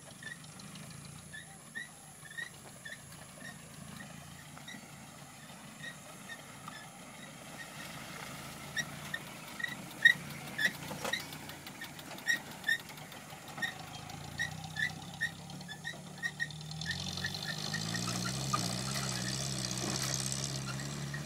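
Land Rover 110 engine pulling off-road, its note rising in pitch and growing louder near the end as it climbs a steep grassy bank. Short high chirps repeat about twice a second throughout, with several sharp knocks around the middle.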